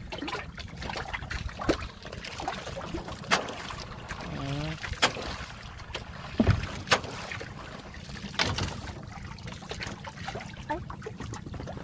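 Scattered sharp knocks and clatter, about half a dozen, over a steady low rumble, as when working on a small boat on the water. A voice speaks briefly about four and a half seconds in.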